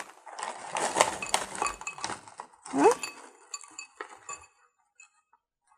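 Crisp butter toast slices tumbling from a snack bag into a glass bowl, clattering and clinking against the glass for about two seconds. A few scattered clicks follow as the pieces are settled by hand.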